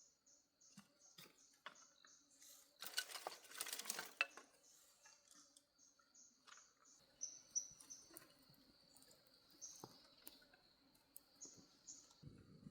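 Faint forest ambience: insects chirping in a steady, even rhythm over a constant high drone. A short crackling rustle comes about three seconds in, with a few light clicks scattered through.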